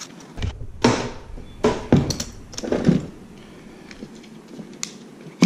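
Handling noise as a small car fire extinguisher and its plastic mounting bracket are taken out of a cardboard box on a workbench: three thumps with rustling, about a second apart, then a sharp click near the end.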